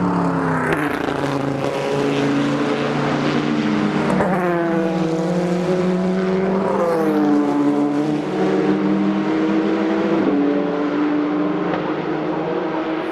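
Endurance race cars passing one after another through a corner, engines running hard. The engine pitch glides up and down as the cars accelerate out of the corner and go by.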